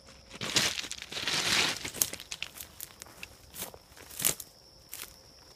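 Footsteps crunching and rustling through dry leaves and brush, in uneven bursts with a few sharp snaps.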